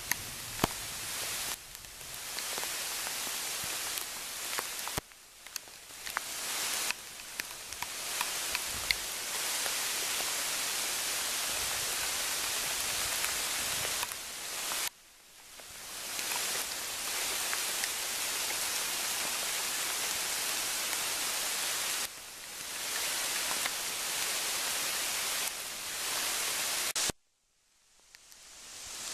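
Steady rain falling on foliage, a dense hiss with scattered sharp ticks of single drops. The sound drops and comes back several times, and goes silent for about a second near the end before fading back in.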